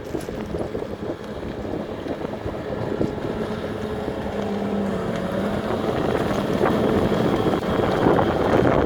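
Mini race boats' engines running out on the water, gradually growing louder, with wind buffeting the microphone.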